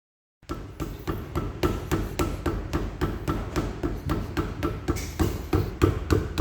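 Brake caliper on a 2007 Nissan Note knocking: a fast, uneven run of sharp knocks, about four to five a second. This is the caliper knock fault. It starts abruptly about half a second in.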